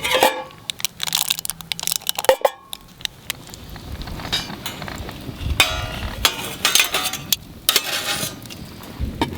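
Cookware and utensils being handled: irregular clinks, knocks and scrapes, a few with a short metallic ring.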